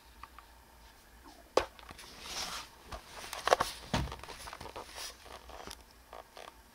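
Camera handling noise and fabric rustling as the camera is moved and a person shifts under a fleece blanket: a sharp click about a second and a half in, a stretch of rustling, then scattered clicks and a dull thump about four seconds in.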